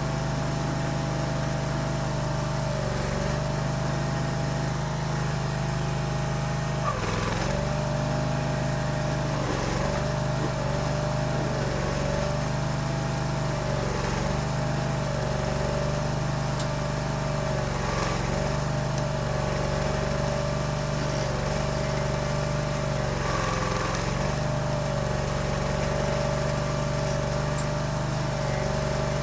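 Barreto E30SGB tracked stump grinder's engine running at high speed under load, its pitch dipping briefly and recovering again and again as the cutter wheel bites into the stump.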